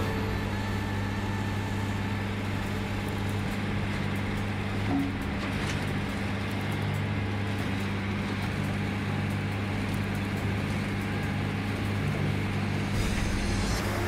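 Industrial stump shredder running under load as stumps are fed into its hopper: a steady, unchanging low mechanical drone from the engine and cutting rotor.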